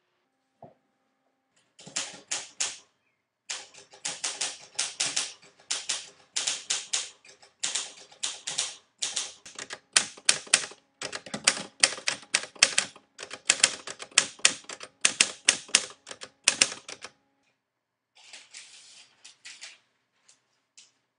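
Manual typewriter typed hunt-and-peck with two index fingers: sharp key clacks in irregular runs of a few strokes with short pauses, stopping about seventeen seconds in. A few fainter, softer sounds follow near the end.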